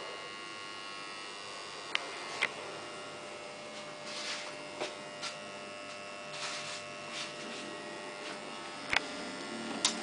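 Steady electrical mains hum and buzz from a powered steel-mill cut-to-length control panel, with a few short sharp clicks scattered through it.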